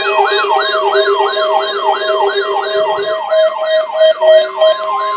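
Electronic siren alarms warbling in quick rising sweeps, about three a second, over steady held tones. About four seconds in, a slowly rising tone begins.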